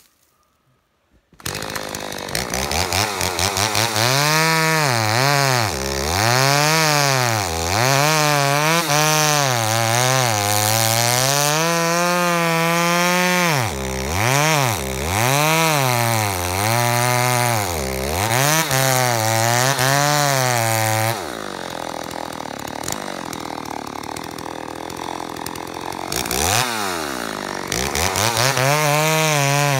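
Stihl MS 290 two-stroke chainsaw cutting through a fir log. It starts about a second in, and its engine pitch repeatedly rises and dips as the throttle is worked and the chain loads up in the wood. About two-thirds of the way through it drops to a lower, quieter running for about five seconds, then revs up and cuts again.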